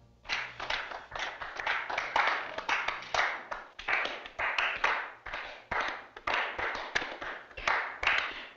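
Nightclub audience applauding, the clapping swelling and dipping in quick waves.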